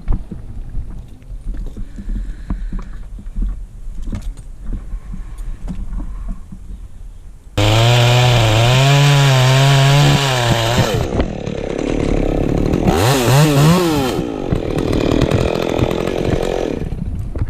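Wind noise, then about seven and a half seconds in a Stihl two-stroke chainsaw starts up suddenly and runs loud, its pitch wavering, then revving up and down before it drops away near the end.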